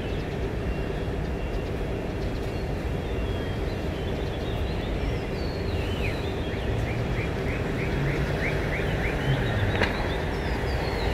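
Steady low rumble of vehicles with birds calling over it: a run of about nine quick descending chirps midway, and higher whistled notes scattered through. A single sharp click near the end.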